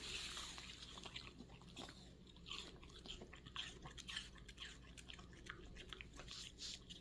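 A dog chewing and crunching pieces of apple, with faint, irregular crunches.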